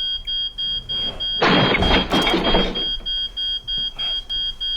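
Electronic alarm beeping in a high, steady rhythm, about two and a half beeps a second. About a second and a half in, a loud burst of noise lasting about a second and a half sounds over it.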